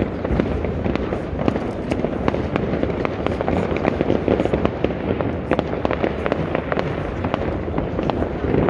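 Dense New Year's Eve fireworks and firecrackers going off all over a city: a continuous crackle of many sharp bangs and pops, near and far, over a steady rumble of distant explosions.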